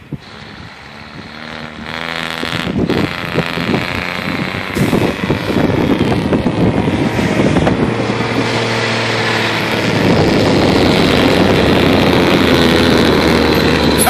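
V-plow snow-plow truck's engine working under load as it approaches and pushes through deep snowbanks, growing steadily louder and holding loud and steady over the last few seconds.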